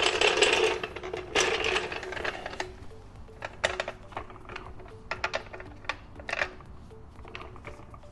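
Steel floor jack rolled and dragged across a concrete garage floor, a loud scraping rumble for the first couple of seconds, then a run of metallic clicks and clacks as it is set in place under the car.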